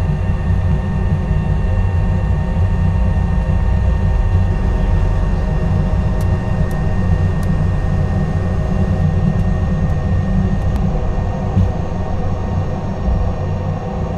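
Bombardier CS100 jetliner on its takeoff roll: its Pratt & Whitney PW1500G geared turbofans run steadily at takeoff thrust, with steady whining tones over a heavy low rumble from the wheels on the runway.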